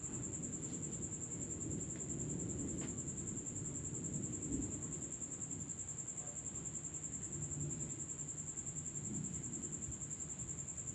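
Crickets at night chirping in one continuous, steady high-pitched trill, over a low background rumble.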